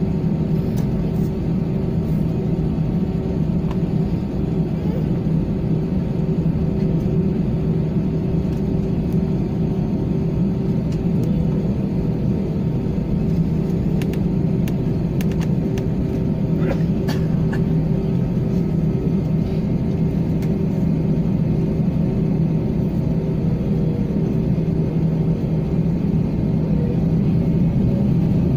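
Airbus A320 jet engines and the rumble of its wheels on the runway, heard from inside the passenger cabin as the jet rolls along the runway for takeoff. It is a loud, steady drone with a low hum, and it grows a little louder near the end.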